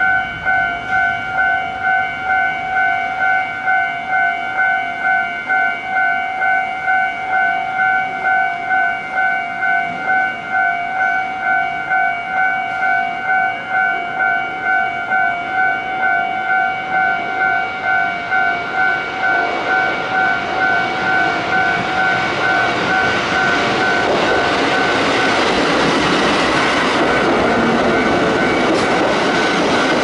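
Japanese level-crossing warning bell ringing in an even two-tone pulse, about twice a second. From about two-thirds of the way in, the running noise of a Kotoden 1200-series electric train grows louder as it comes into the crossing. In the last few seconds the train is passing and partly drowns out the bell.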